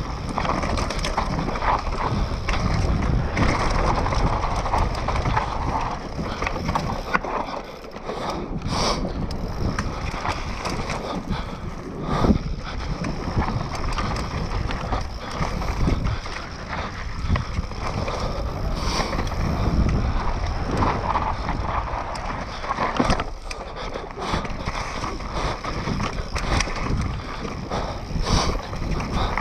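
Mountain bike descending a rocky dirt trail at speed: tyres crunching over dirt and stones, with the bike rattling and knocking over bumps and rocks.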